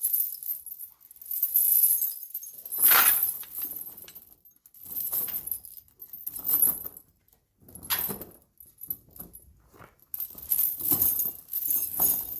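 Steel tire chains jingling and clinking in irregular bursts as they are handled and laid out, the loudest about three seconds in.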